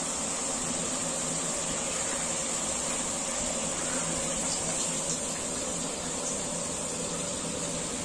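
Steady hiss of a large aluminium pot of mutton cooking over a fire, with a few faint ticks in the middle as raw meat pieces are tossed in.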